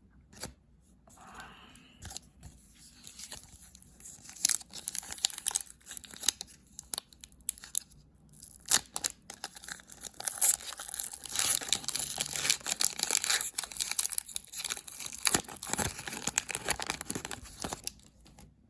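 Wrapper of an Upper Deck Series 2 hockey card pack being torn open and crinkled by hand. The crackling tears and rustles are sparse at first and grow dense and busy about four seconds in.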